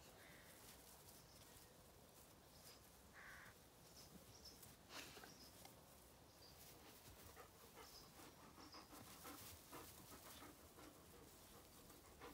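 Near silence: faint rustling and soft clicks from a tabby cat and puppies play-wrestling in long grass, with a few faint high chirps.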